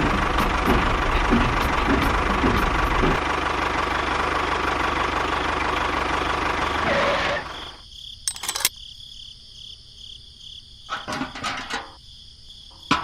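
A small engine running loud and steady with a fast low pulsing, cutting off sharply about seven seconds in; after that, a few scattered clicks and knocks.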